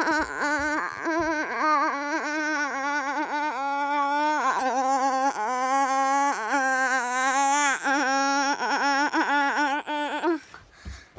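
A girl's voice holding a long, wavering, warbling tone with a fast, constant wobble in pitch, broken only by a couple of short pauses, then stopping near the end.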